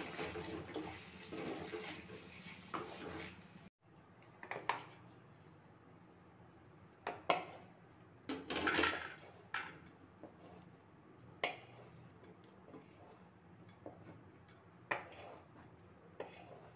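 A spoon stirring food sizzling in a metal kadai, cut off suddenly a few seconds in; then scattered scrapes and clinks of the spoon and kadai against a steel plate as the food is scraped out onto it.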